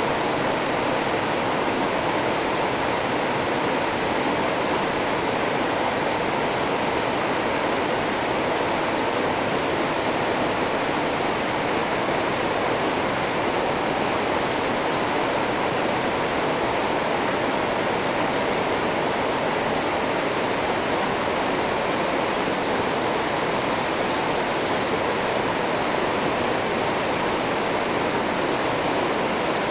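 River water rushing over rocky rapids: a steady, unbroken rush with no change in level.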